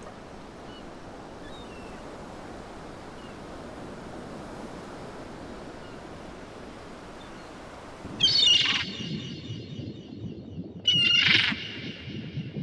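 Steady noise of sea and wind, then gulls calling loudly twice, about eight and eleven seconds in.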